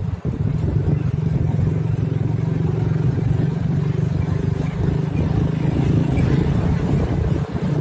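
Motorcycle engine running steadily while riding, with a constant low drone and rumble.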